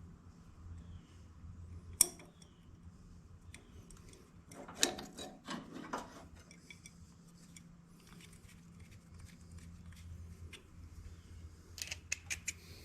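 Hand tools and metal parts clinking and clattering. There is a sharp click about two seconds in, a burst of clatter around five seconds, and a quick run of light clinks near the end.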